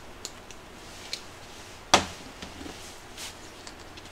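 Handling noises at a stainless-steel kitchen counter: light clicks and taps as seasoning packets and tubes are picked up and opened, with one sharp knock about two seconds in that rings briefly.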